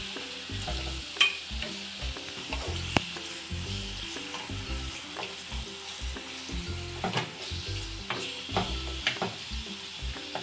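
Chicken breast strips and sliced onions sizzling in oil in a frying pan, stirred with a wooden spatula that scrapes and knocks against the pan now and then.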